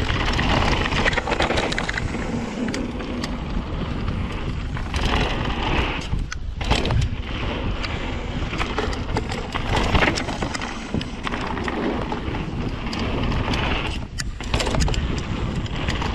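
Rocky Mountain Slayer full-suspension mountain bike riding fast down a rough trail: tyres rolling over rock and gravel, with steady clicking and knocking from the bike rattling over bumps, and wind on the GoPro microphone.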